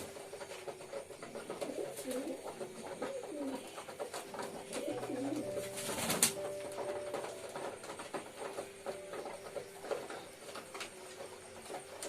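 Domestic pigeons cooing, a run of low coos that rise and fall in pitch, with a sharp click about six seconds in.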